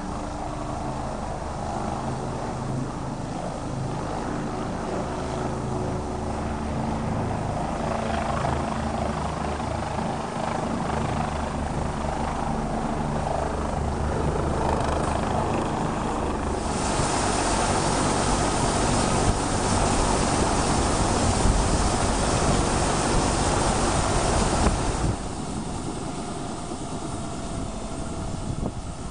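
MBB-Kawasaki BK 117 helicopter's main rotor beating and its engines running as it hovers in and lands. Past the middle a louder hissing rush sets in for about eight seconds, then stops abruptly. Near the end a whine falls slowly in pitch while the rotor keeps turning.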